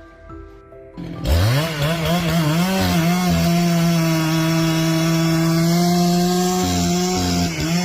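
Background music, then about a second in a chainsaw revs up sharply to full throttle and runs at high speed, holding a steady pitch with a few brief dips.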